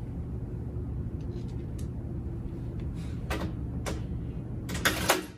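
Small parts being handled: a few light clicks and a crinkling rustle of plastic bags of mounting screws, loudest near the end, over a steady low hum.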